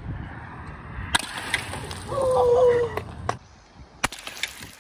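A porcelain toilet thrown from a parking-garage roof smashes on the ground below with a sharp crash about four seconds in. Before that comes a few clattering knocks and a long shout, which is the loudest sound.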